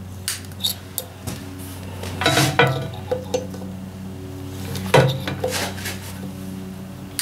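Metal clinks and scrapes of a grease gun's needle nozzle working against a tractor wheel hub's bearing as it is packed with grease. Scattered light clicks, with two louder clanks about two and a half and five seconds in, over a steady low hum.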